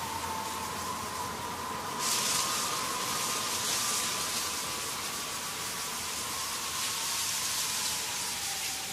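Steady hiss like rain or static, with a faint held tone slowly sinking in pitch. The hiss turns brighter and louder about two seconds in.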